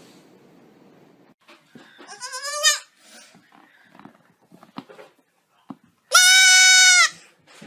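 An animal calling twice: a short cry rising in pitch about two seconds in, then a loud, long cry held at one pitch for about a second near the end.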